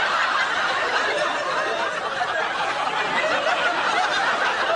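A studio audience laughing, many voices at once.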